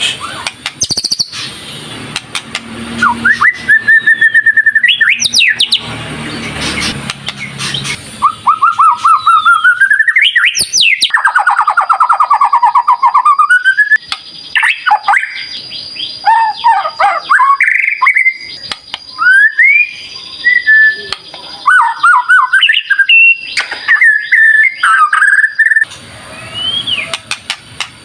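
White-rumped shama (murai batu) singing vigorously: a varied, unbroken song of loud whistles, rising and falling glides and runs of fast repeated notes.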